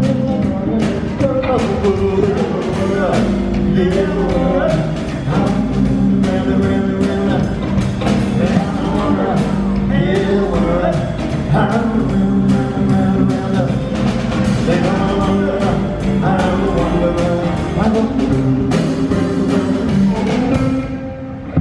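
Live rock and roll band playing with a lead singer, the mix loud and full. The sound dips briefly near the end.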